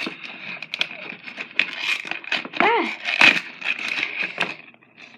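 Handling noise of a fidget spinner package being opened: a run of small clicks, taps and rustles, which thin out near the end.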